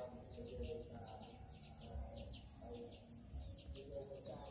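Small birds chirping, quick high calls that each sweep downward, repeated in short runs, over a lower pitched sound and a steady high hiss.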